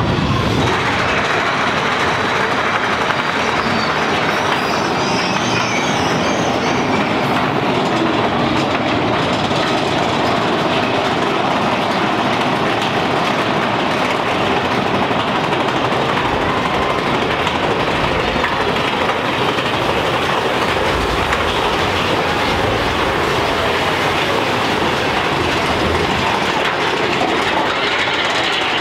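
Big Thunder Mountain Railroad's mine-train roller coaster rolling along its track, a steady loud rumble and clatter of the cars and wheels that holds even throughout.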